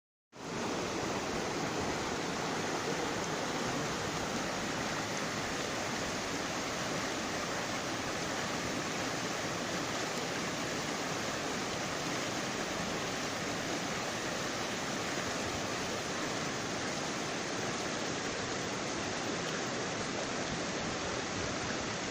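Mountain stream rushing steadily through a rocky canyon, an even roar of water with no breaks.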